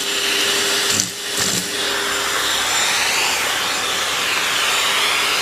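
Vacuum cleaner running continuously, its high whine wavering in pitch, with a brief drop in level about a second in.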